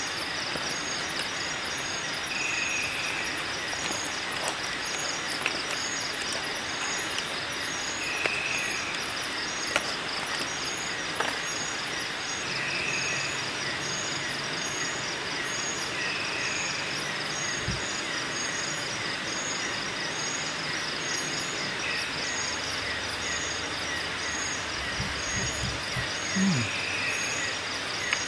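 Night-time rainforest insect chorus: a steady high, rapidly pulsing trill, with a short call repeating every four seconds or so, over a steady rushing background of river noise. A brief low sound near the end.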